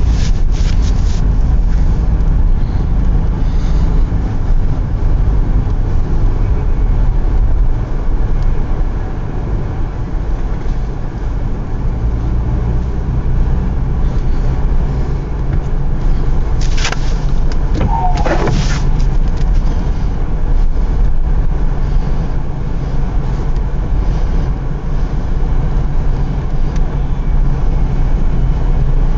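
Car driving, a loud steady low rumble of engine and road noise, with two short wavering higher-pitched sounds about two-thirds of the way through.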